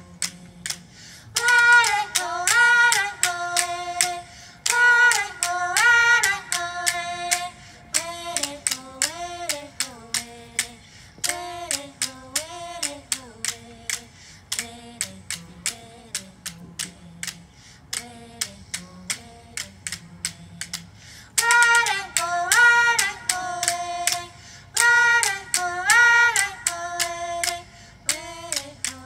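Women singing a Rumsen Ohlone bird song in wavering phrases that step down in pitch, over a steady clicking percussion beat of about two strokes a second. The singing is loud from about a second and a half in until about eight seconds, softer through the middle, and loud again from about twenty-one seconds.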